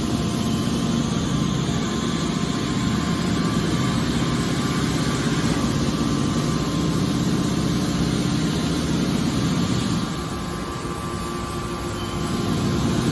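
Hydraulic scrap metal baler shear running: a steady machine drone with a constant hum, which drops a little in level about ten seconds in.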